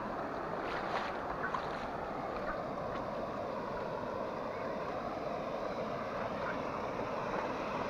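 Muddy floodwater rushing over flooded fields and a path, a steady wash of flowing water.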